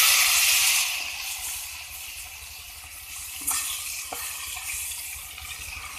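Raw chicken pieces sizzling in hot oil with black pepper in an aluminium pot: a loud burst of sizzling as the meat goes in, settling after about a second to steady frying. A wooden spoon knocks lightly against the pot twice, about three and a half and four seconds in.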